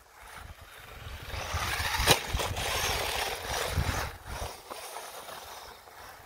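WLToys 12427/12428 RC off-road car driving close by over dry leaves and brick paving. A rustling, rattling noise swells as it comes near and fades after about four seconds, with one sharp knock about two seconds in.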